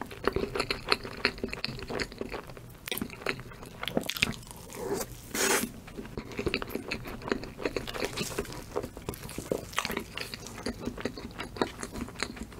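Close-miked chewing of a large mouthful of chocolate Oreo cream cake: a steady run of small wet mouth clicks and soft crunches, irregular and close together.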